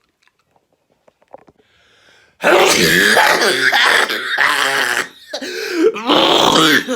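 A man with a bad cold in a fit of loud, drawn-out, voiced sneezes, one after another with barely a pause, starting about two and a half seconds in.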